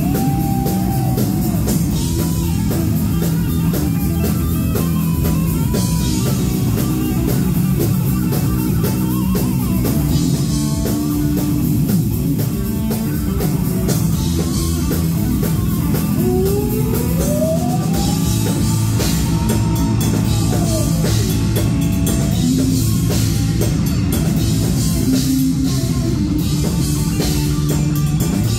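Heavy metal band playing live: distorted electric guitars, bass guitar and drum kit. Above them a lead line glides up and down in pitch, with one long rise and fall about two-thirds of the way through.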